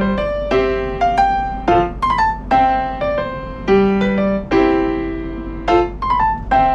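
Background piano music: notes and chords struck at an even pace, each ringing and fading.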